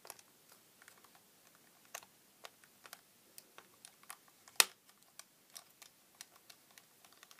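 Screwdriver tip stabbing and levering at the seam of a small plastic night-light case: scattered light clicks and ticks of metal on plastic, with one louder sharp click a little past halfway.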